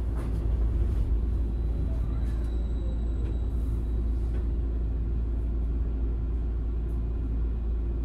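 Steady low hum and rumble of a tram standing at a stop, heard from inside the driver's cab, with a faint high whine for about two seconds in the middle.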